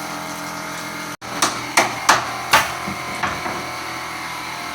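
Four quick hammer blows on wood, about a third of a second apart, with a fainter knock after them, over a steady background hum.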